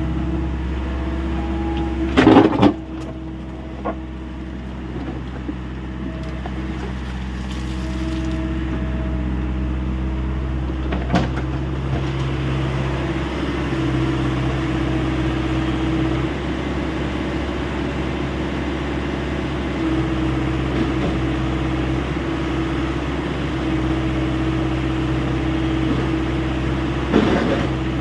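Hyundai 85A SMART excavator's diesel engine running steadily, its tone shifting as the hydraulics take load. Loud clanks come about two seconds in and again near the end.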